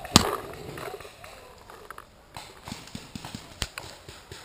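Paintball markers firing: a loud, close pop right at the start and another about three and a half seconds in, with scattered fainter pops throughout.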